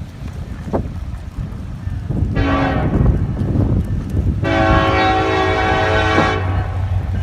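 Dubbed-in sound effect of a locomotive air horn: a short blast about two and a half seconds in, then a longer blast of about two seconds, over a steady low locomotive rumble.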